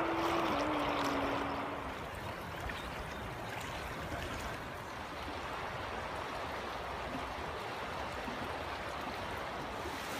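Shallow mountain river flowing over rocks and gravel: a steady wash of running water, a little louder in the first two seconds. A low steady tone steps down slightly in pitch and stops about two seconds in.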